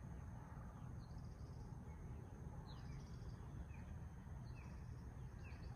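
Faint outdoor ambience: a bird calling repeatedly in short, high chirps that fall in pitch, about once a second, over a steady low rumble.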